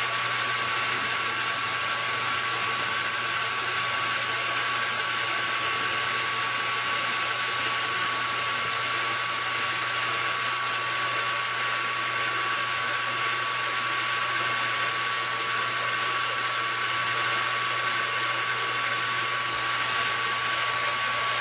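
Metal lathe running steadily while a cutting tool takes a cut in an aluminum spacer: a steady mechanical hum with a constant high whine, which stops near the end.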